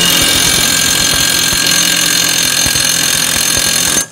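Milwaukee mid-torque impact wrench on setting two, hammering a mower blade's spindle bolt tight with a steady loud rattle. It cuts off about four seconds in.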